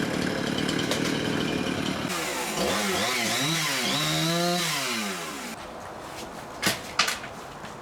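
Chainsaw running and cutting, then revving up and down in pitch before dropping back to a quieter run about five and a half seconds in. Two sharp knocks near the end.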